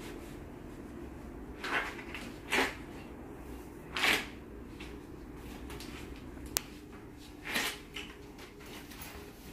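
A few short rustling scrapes of things being handled, with one sharp click about two thirds of the way through, over a steady low hum.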